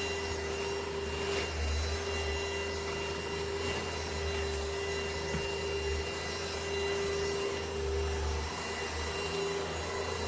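Tower VL25 corded stick vacuum cleaner running steadily: a constant motor whine over rushing air.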